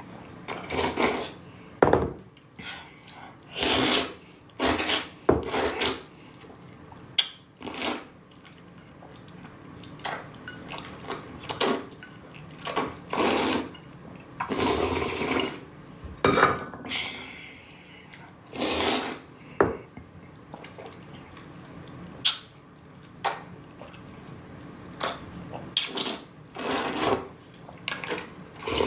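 Noodles being slurped into the mouth again and again, in short wet bursts with brief pauses between them.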